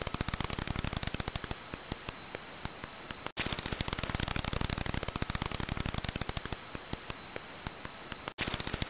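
Brown long-eared bat echolocation calls, heard as a fast train of sharp clicks that thins out to scattered single clicks. The pattern repeats about every five seconds, with a brief dropout at each restart.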